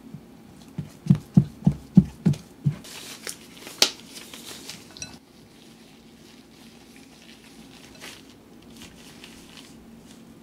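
Kitchen handling of sweet potato gnocchi dough: a quick run of six dull knocks, about three a second, then a single sharp click, then softer rustling and squishing of gloved hands in the sticky dough.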